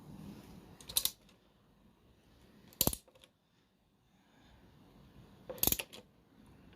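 Three short metallic clinks a couple of seconds apart, from loose metal parts of a disassembled motorcycle engine being handled.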